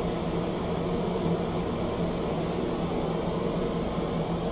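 Propane torch burning steadily into a small KK-6 gas kiln, a constant rushing burner noise with a low hum as the empty kiln preheats.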